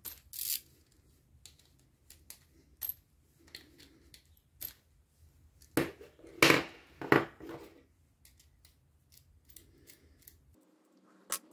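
Small metal hand tools clicking and clattering as the 10 mm bolts of an LPG injector rail's retaining plate are undone with a nut driver and socket, with three louder knocks about six to seven seconds in as tools are set down on the table.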